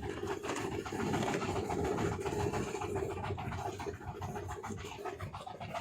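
Motor on a small fishing boat running steadily with a dense, rapid rattle as the fishing net is hauled in.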